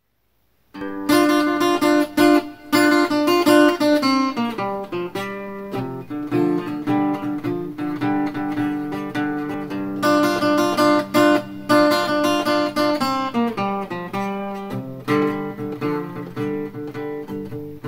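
Ladder-braced Gibson LG-0 acoustic guitar playing a blues introduction, starting about a second in.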